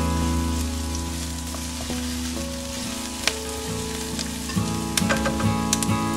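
Sliced onions sizzling in hot oil in a nonstick pan as they are stirred with a slotted spatula, with a few sharp taps of the spatula against the pan, mostly in the second half.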